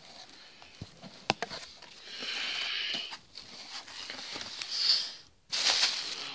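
Cardboard box being handled and opened: two light knocks, then stretches of rubbing and scraping cardboard, the loudest near the end.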